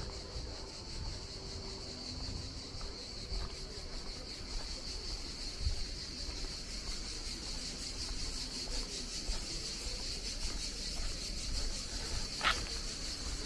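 Steady, fast-pulsing chirring of insects throughout, over a low rumble, with one short sharp click near the end.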